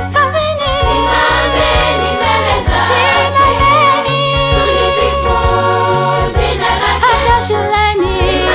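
A girls' choir singing a Swahili gospel song in harmony, with a lead voice over the group, backed by instruments with a bass line that steps from note to note.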